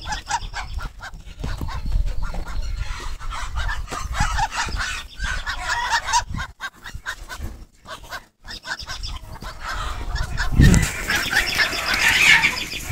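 Chickens clucking and calling in short, repeated notes, with a thump about ten seconds in.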